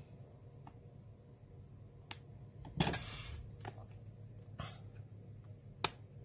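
Fingers working inside an opened tablet: a few light plastic clicks and a short scraping rustle about three seconds in, the loudest sound, then a sharp click near the end as the battery's plug is pressed into its socket on the board.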